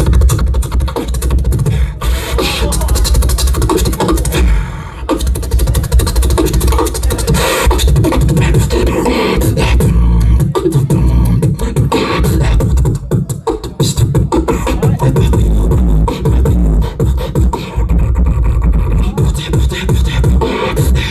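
Human beatboxing through a handheld microphone and venue PA: one beatboxer keeps up a continuous, fast beat of rapid percussive mouth sounds over heavy bass hits.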